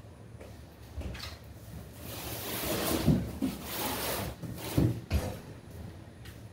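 Cardboard packaging being handled and moved about: a rustling, scraping noise through the middle with several dull thumps.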